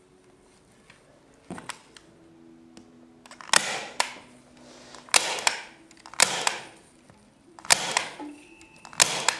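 Hand-squeezed staple gun firing staples through polyester wadding into softboard: a string of sharp snaps, most of them in the second half, with the rustle of the wadding being smoothed between shots.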